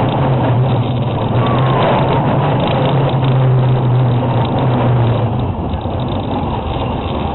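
Kiddie roller coaster train running along its track: a steady, loud rumble and rattle of the wheels and cars, with a low hum that drops slightly after about five seconds.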